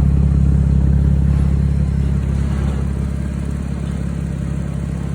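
2002 Nissan Maxima's V6 engine running steadily, its exhaust leaking: a loud, steady low rumble from the leaking exhaust system under the car.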